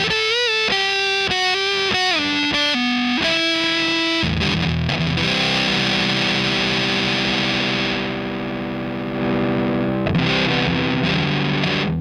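Electric guitar played through a Big Muff-style fuzz pedal with its sustain knob set low. A few single notes with string bends come first, then a chord is struck about four seconds in and left to ring, and another chord is struck near the end.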